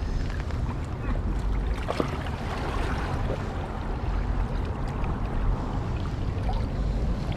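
Wind rumbling on the microphone over a steady wash of sea water, with a few faint clicks.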